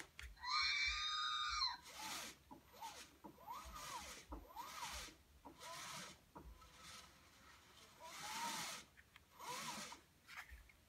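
Drive motors of an R2-D2 replica droid whining up and down in pitch in repeated short runs as it moves while standing upright, the longest run about half a second in, with brief rushes of noise between them.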